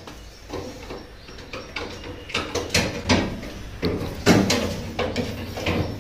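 Irregular knocks and clatter of a washing machine and its parts being handled and shifted.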